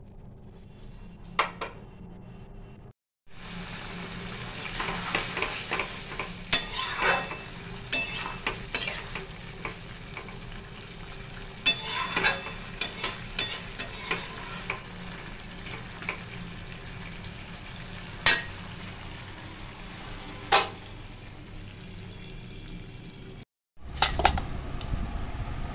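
Metal spatula stirring and scraping a thick curry in a metal kadai, with sharp clinks against the pan and the steady sizzle of the curry frying down. A short low rumble comes in near the end.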